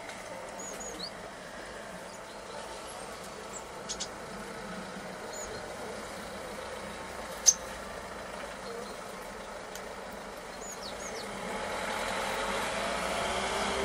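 Short, high chirps from tits scattered through a steady street background, with a sharp click about halfway through. A vehicle passes, growing louder near the end.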